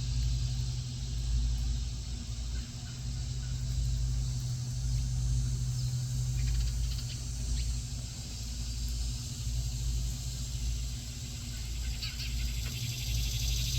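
Steady low rumble with a faint hum. A few short, faint high notes, likely a northern cardinal, come about six to seven seconds in and again near the end.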